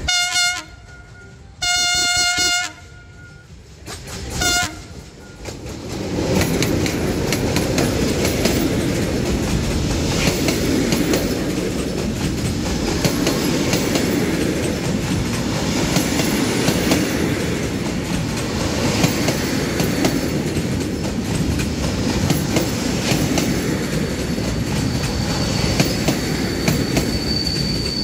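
Diesel locomotive horn sounding three blasts (short, longer, short) as a freight train approaches. Then the long train of covered freight wagons rolls past close by, rumbling steadily with wheels clattering over rail joints. A high steady wheel squeal rises near the end.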